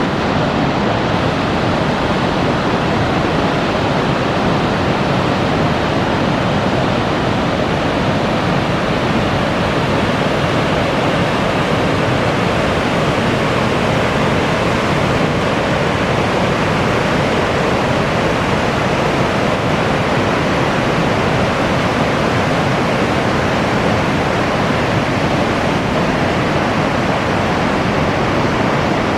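Waterfall: a loud, steady rush of falling water that holds even throughout.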